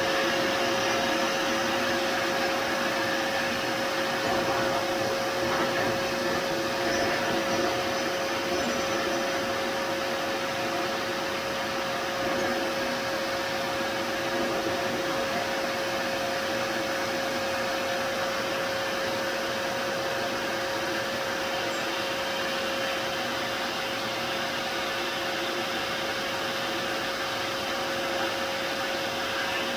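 Electric air blower running steadily through a ribbed hose: rushing air with a steady high whine. It is blowing cold air on a preheated 3D printer bed to force the temperature down and test the printer's thermal runaway protection.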